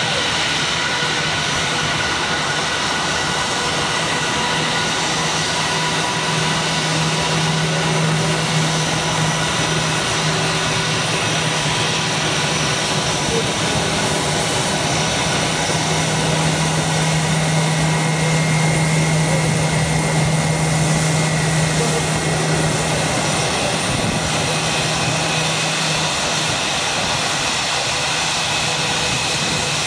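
Airbus A321 taxiing, its two jet engines running steadily at low taxi thrust: a continuous rush with a high whine, swelling a little past the middle.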